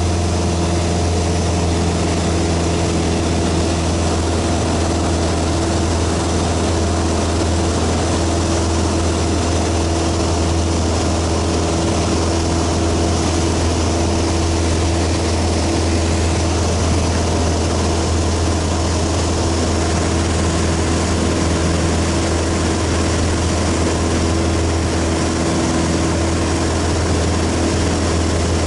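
Single-engine propeller airplane's piston engine and propeller droning steadily in flight, heard from inside the cabin as a loud, even low hum with a steady higher tone above it.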